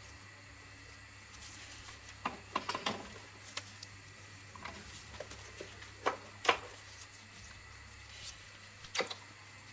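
Scattered light clicks and knocks, as of small parts or tools being handled during repair work, over a low steady hum. The knocks come in a cluster a couple of seconds in, a louder pair past the middle and one more near the end.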